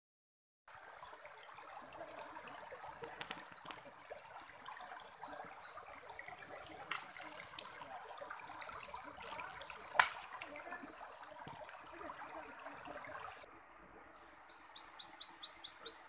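River water flowing, with a steady high-pitched whine over it and one sharp click about ten seconds in. This stops abruptly, and near the end a common iora (cipoh) gives a rapid series of about nine loud rising chirps, roughly five a second.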